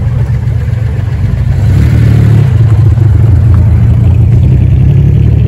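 Car engine running under load with a loud, steady low drone that gets louder about a second and a half in.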